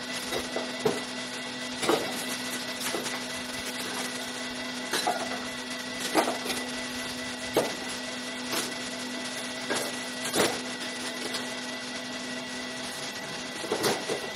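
Electric motor of a pottery machine running with a steady hum, with irregular knocks about every second or two; the hum's tone drops out near the end.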